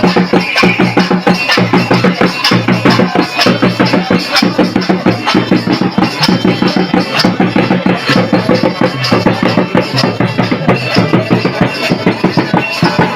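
Santali dong folk music: drums beating a fast, steady rhythm under other instruments.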